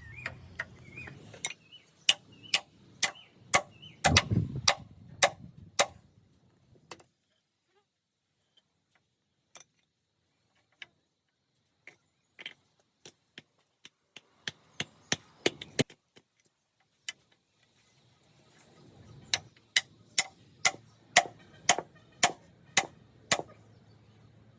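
Hammer blows striking wood in a steady rhythm of about two a second, in three runs with a short pause between them.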